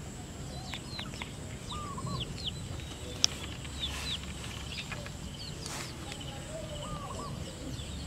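Small birds chirping in the background: quick, high chirps that sweep downward, coming every second or so, with a lower hooked call now and then. A single sharp click a little over three seconds in.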